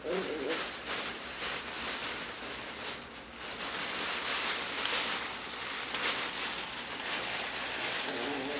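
Continuous rustling and crinkling of fabric as puppies move about on bedding and a fabric play tunnel, with a short whimper-like voice at the start and again near the end.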